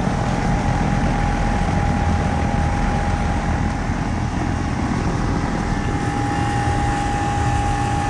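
A 2008 York Olympian 4-ton central air conditioner condensing unit running steadily just after switching on. Its Bristol compressor hums and its condenser fan rushes, with a clear steady tone over them.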